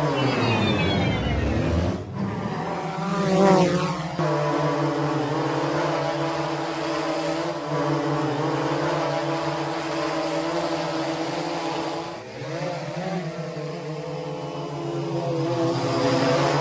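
Quadcopter drone's motors and propellers buzzing with a steady multi-tone whine. The pitch sweeps down at the start, swells a few seconds in, dips about twelve seconds in and rises again near the end, as the drone changes speed.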